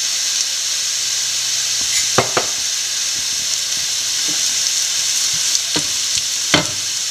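Sliced onions, green chillies and garlic sizzling in oil in a ceramic-coated frying pan as turmeric powder is stirred in, a steady hiss with a few knocks and scrapes of a wooden spatula against the pan.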